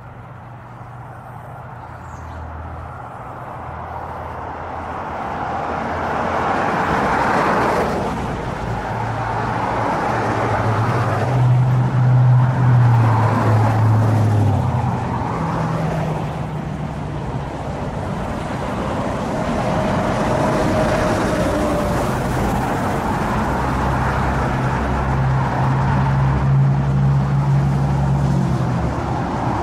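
Road traffic: several cars passing on the street, engine hum and tyre noise swelling and fading in waves, building up over the first few seconds.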